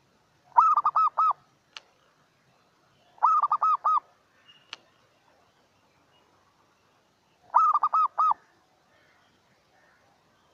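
Zebra dove calling: three quick bursts of about five rapid staccato coos each, the bursts a few seconds apart, with two faint clicks between them.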